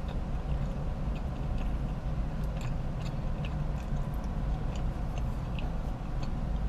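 A person chewing bites of frosted coconut carrot cake, with small, short mouth clicks and the odd tap of a plastic fork, over a steady low rumble.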